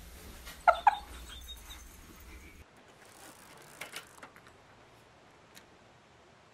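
Two short falling cries from an animal, less than a second apart, about a second in. After a sudden cut, faint clicks and a light clatter about four seconds in as a child's bicycle hits the front of a parked pickup.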